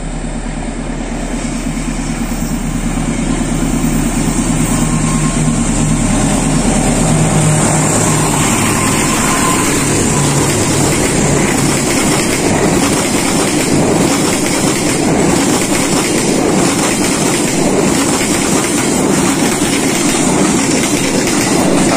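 Diesel-electric locomotive hauling a passenger train up a grade, its engine hum growing louder as it approaches. About eight seconds in it gives way to the rumble and clickety-clack of the coaches' wheels on the rails as the carriages pass close by.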